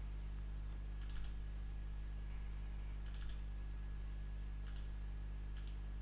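Computer mouse button clicked in short double-clicks, four times spread across a few seconds, over a steady low electrical hum.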